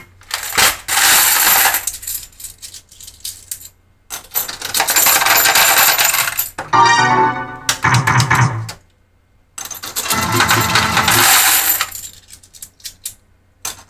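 Pachislot machine paying out: three long bursts of metal medals clattering into its tray, with short electronic jingles from the machine in between.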